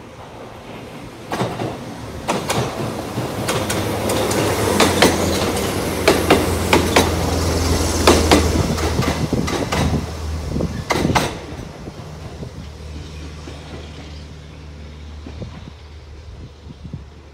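Konan Railway electric commuter train passing close by, its wheels clicking in pairs over the rail joints above a steady low hum. A last loud pair of clicks comes about eleven seconds in, then the train fades to a low hum as it moves away.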